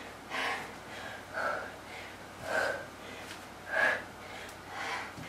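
A woman breathing hard from exertion, a forceful breath with each push-up: five breaths about a second apart.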